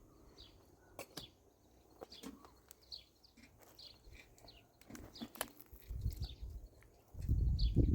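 A bird chirping over and over, each chirp a short high note falling in pitch, with a few sharp clicks between. Near the end a loud low rumbling noise starts and becomes the loudest sound.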